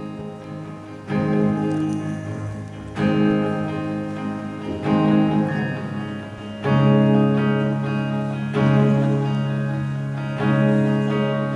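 Solo guitar playing slow chords, each struck and left to ring for about two seconds, six chords in all from about a second in.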